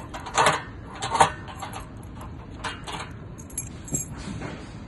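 Metallic clicks and clinks from a door-lock body with a key cylinder and hook latch being handled, with key and metal parts knocking together. Two sharp, loud clicks come about half a second and a second and a quarter in, followed by a few lighter clinks.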